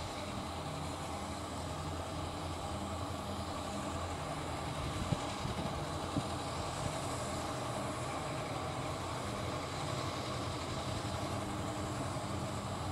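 Small diesel shunting locomotive's engine running steadily with a low, even hum, with a couple of faint clicks about five and six seconds in.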